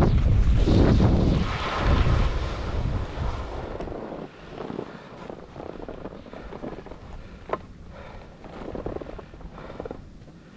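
Wind buffeting the microphone and skis hissing over fresh snow during a fast downhill run, loud for about four seconds, then fading as the skier slows to a stop. Afterwards only quieter scuffs of skis shifting on snow, with one sharp click past the middle.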